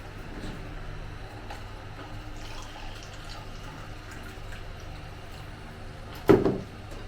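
Faint sounds of people eating over a steady low hum, with one short louder sound about six seconds in.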